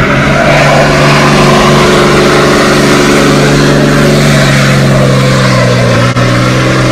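Pickup truck engine held at steady high revs while the truck spins its rear tyres in tight donuts on pavement. Loud, with an unchanging engine pitch and a haze of tyre and exhaust noise.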